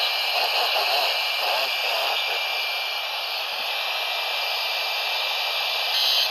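Steady radio static hiss from a receiver on a weak weather-radio signal, with a faint broadcast voice just audible under the noise.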